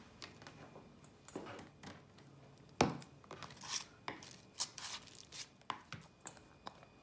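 Chopsticks clicking and scraping against a stainless steel bowl and a plastic food container as shredded carrot is moved across, in quick irregular taps, with one louder knock about three seconds in.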